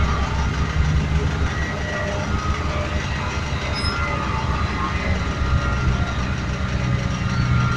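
Bomag tandem asphalt roller's diesel engine running with a steady low rumble as the steel drums roll over fresh asphalt.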